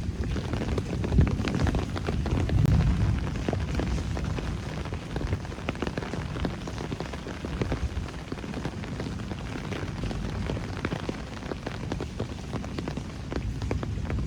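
Steady rain, with many close drops ticking and tapping, over a low rumble that swells in the first few seconds and then settles.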